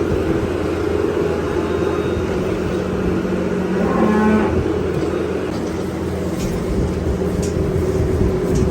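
A cow moos once, briefly, about four seconds in, over the steady drone of a skid loader's engine running.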